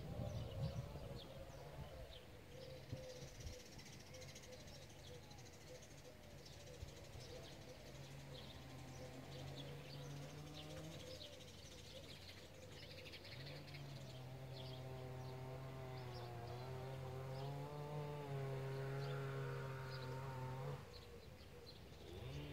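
Quiet countryside ambience: birds chirping and an insect buzzing, its drone wavering in pitch through the second half. There is a brief low rumble at the start.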